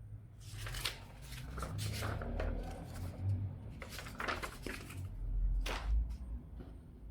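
Packaging being rustled and handled, with a series of sharp clicks and knocks and a heavier thud about six seconds in.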